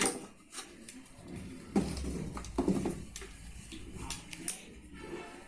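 Scattered light clicks and knocks as a replacement flyback transformer is handled and set onto a CRT television's circuit board.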